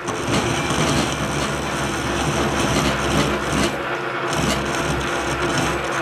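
Metal lathe running with a radius tool bit cutting into a welded shaft. The tool is worked forward and back and in and out a little at a time to keep tool contact down, giving a steady cutting noise over the machine's running hum.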